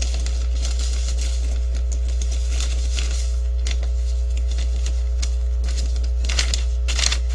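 A sheet of paper rustling and crinkling as it is handled, in irregular scratchy bursts with a louder flurry near the end, over a steady low electrical hum.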